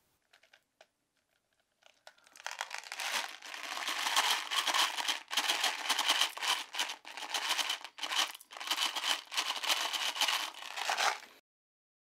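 Close, dense crinkling and tearing noise made of many short crackly strokes. It starts about two seconds in and cuts off suddenly about a second before the end.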